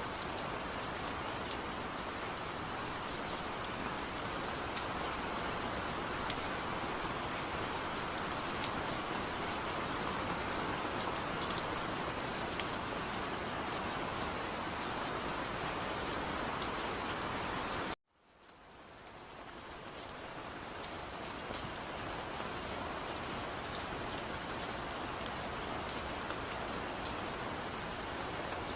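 Steady rain falling, with scattered ticks of single drops. About eighteen seconds in, the sound cuts out abruptly and fades back in over a couple of seconds.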